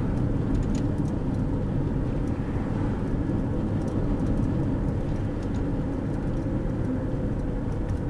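Steady road and engine noise heard inside the cabin of a car driving along a two-lane road, a low, even rumble.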